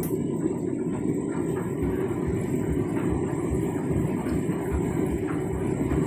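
Front-loading washing machine tumbling its empty drum on a rinse cycle: water sloshing and splashing inside over a steady low rumble from the drum and motor.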